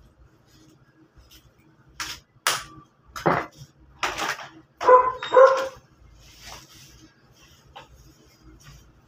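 A dog barking a few times, the two loudest barks coming close together about five seconds in, with sharp clattering sounds just before.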